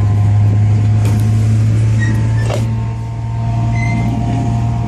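Steady low machinery drone like a running engine, with a few faint clicks and scrapes as the bit box of a downhole mud motor is turned by hand.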